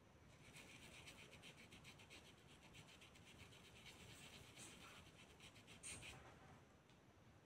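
Faint, rapid scratching of paintbrush bristles stroking fabric paint onto cloth, many quick short strokes that die away about six seconds in.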